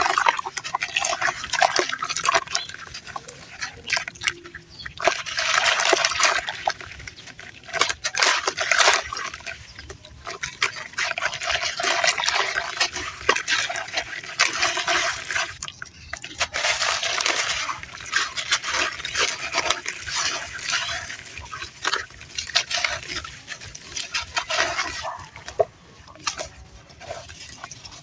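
Crunchy red sand crunching and crumbling close to the microphone, a dense gritty crackle in bursts of a few seconds with short breaks between them.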